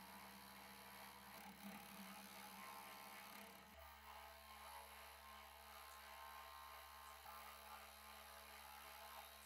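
Bench grinder motor running steadily with a wire brush wheel, a small steel part being wire-brushed against it to strip rust. A low, even hum with a faint scratching haze that changes slightly about four seconds in.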